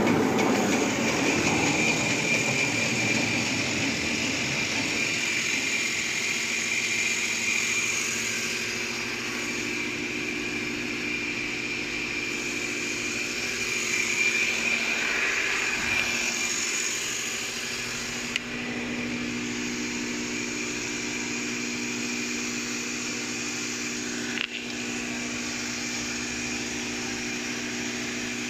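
Napkin tissue paper making machine running steadily, a mechanical hum with a high whine, a little louder in the first several seconds. Two short knocks, one past the middle and one near the end.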